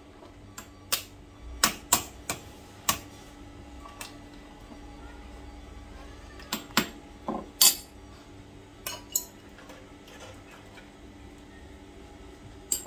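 Aluminium meat-tenderizer mallet striking mud crab claws and shell on a wooden cutting board to crack them: sharp knocks at irregular intervals, a cluster in the first three seconds, more from about six to nine seconds in, and one near the end.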